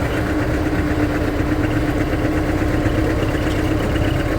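Vehicle engine running steadily with a low rumble and a constant hum.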